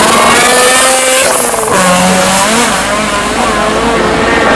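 Audi Quattro rally car's turbocharged five-cylinder engine revving, its pitch rising and falling several times.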